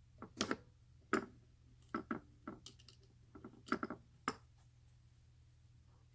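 Capping tool of a hand shotgun-shell reloading kit being tapped about a dozen times, irregularly, to seat a new primer in a 12 gauge hull: sharp knocks.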